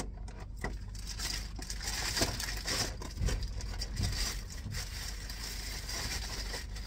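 Crunchy chewing of a fried avocado egg roll with a crispy wrapper, a run of irregular crackles.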